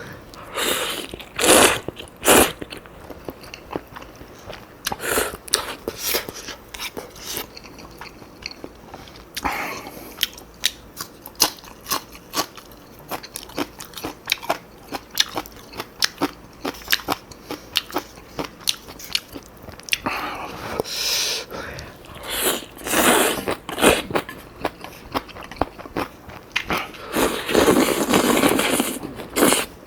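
Close-miked eating: crunching bites of kimchi and wet chewing, in many short sharp crunches with a few longer noisy stretches.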